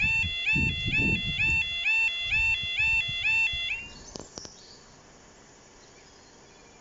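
Level crossing's new electronic warning alarm sounding a repeating tone that rises and then holds, about twice a second, then cutting off nearly four seconds in. A brief knock follows.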